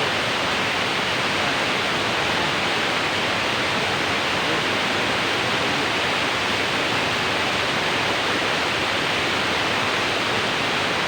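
Waterfall water rushing as a steady, unbroken roar of falling water.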